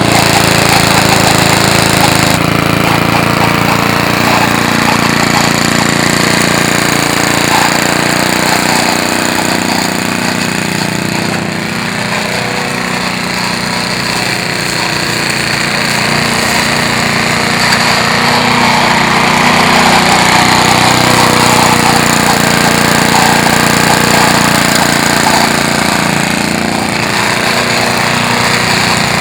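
Small gasoline engine of a 1950s Johnston push lawn mower running loudly and steadily on its first run after sitting unused for years. The running sags slightly about a third of the way in and picks back up.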